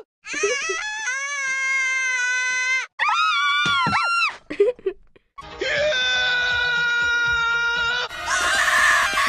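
Cartoon characters screaming in a quick string of cut-together clips. A long held scream runs to about three seconds in, then a shorter one, some brief yelps, and another long steady scream. A harsher, rougher scream starts near the end.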